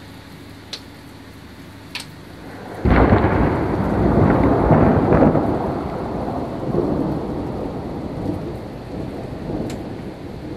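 Thunder over steady rain: a sudden loud clap about three seconds in, rolling on for a few seconds and slowly dying away.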